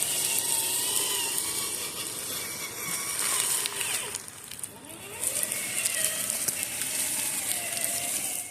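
Electric motor and gear drivetrain of a Traxxas TRX-4 RC crawler whining as it drives, its pitch rising and falling with the throttle, over a steady high hiss.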